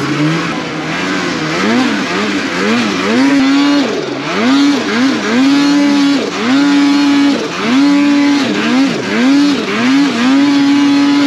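Snowmobile engine revving up and down over and over as the throttle is worked, the pitch climbing, sometimes holding for about a second, then dropping back.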